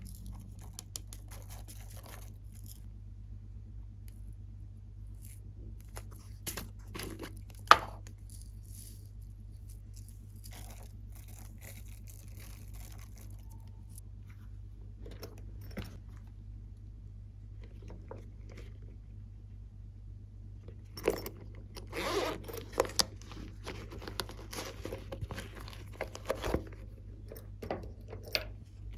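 Slime being handled and mixed with added items: scattered crackles, crunches and scraping, with a sharp snap about eight seconds in and a busy run of crackling in the last third. A low steady hum runs underneath.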